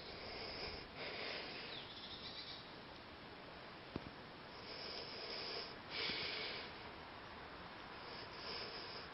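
Faint, soft breathy puffs of hiss, several of them spaced a second or two apart, with a single faint click about four seconds in.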